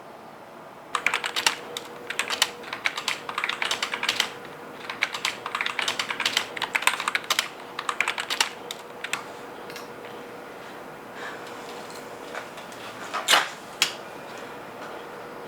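Typing on a computer keyboard: a fast, busy run of key clicks for about eight seconds, then a few scattered keystrokes and two sharper clicks near the end. A faint steady hum runs underneath.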